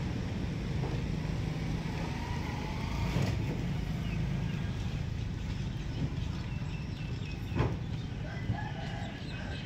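A rooster crowing over a steady low rumble, with a short knock near the end.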